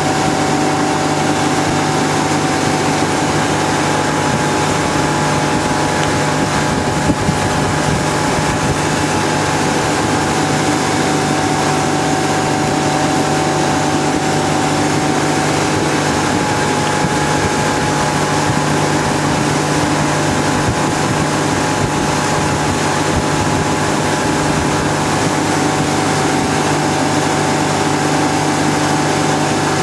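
Tow boat's engine running steadily at towing speed, a constant drone over the rush of wake and wind.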